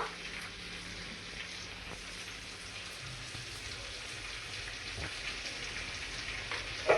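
Okra (bhindi) frying on a tawa, a steady soft sizzle.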